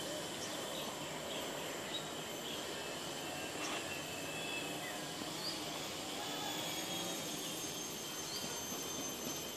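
Steady outdoor ambience of a wooded park: an even background hiss and hum with faint steady high tones, like insects, and a few short high chirps from birds scattered through it.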